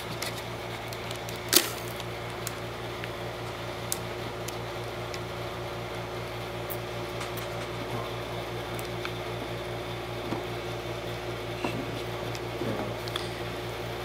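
Small clicks and taps of a hard drive and its plastic mounting bracket being handled and unplugged inside an opened iMac, with one sharp click about one and a half seconds in, over a steady hum.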